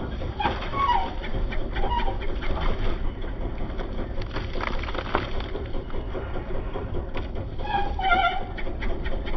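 Chickens clucking and calling in short bursts, the loudest call near the end, over a steady low rumble.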